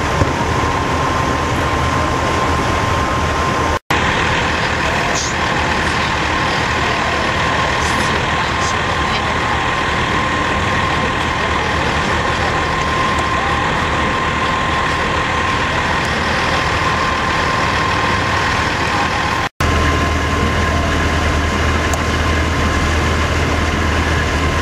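Diesel semi-truck engines idling, a dense steady rumble with a constant high tone over it. The sound breaks off for an instant twice, and after the second break, near the end, the low engine rumble is heavier.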